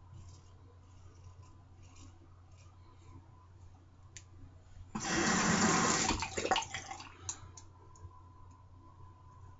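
Tap water running into a sink for a little over a second, about five seconds in, then trailing off. Before and after it, faint short scraping strokes of a Nanjie safety razor against lathered stubble.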